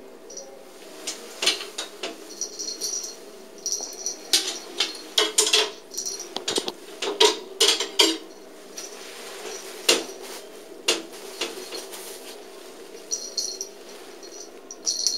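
A cat toy being played with: short jingling rattles and scattered sharp clicks and clatters. The clicks cluster in the middle, with a couple more soon after, and the jingling comes early and again at the end.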